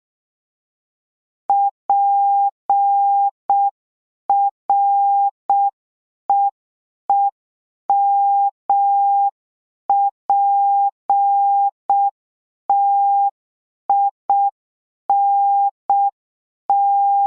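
Morse code practice tone: one steady beep switched on and off in short dits and long dahs, spelling P-R-E-E-M-P-T-I-N-G at a slow, evenly spaced pace. The last letter is still being sent at the end.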